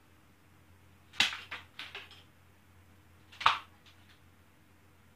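UGears wooden rubber-band gun being worked and fired: clusters of sharp wooden clicks and rattles about a second in and again near two seconds, then one loud sharp snap about three and a half seconds in.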